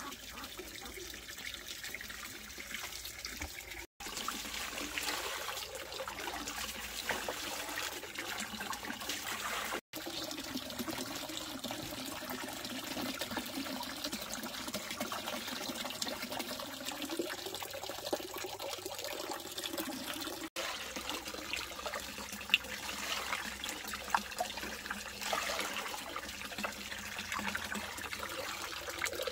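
Water running and splashing steadily, with a few light clicks and knocks, broken by three very short dropouts.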